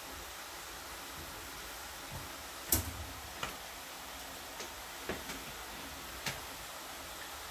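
Kitchen utensils being handled during cooking: about six light knocks and clicks, the loudest a little under three seconds in, over a steady hiss.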